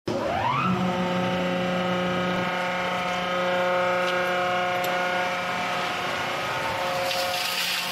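Ice blower system's electric motor and belt-driven blower running with a steady multi-tone whine. The pitch rises over the first second as it comes up to speed, then holds level, with a little more hiss near the end.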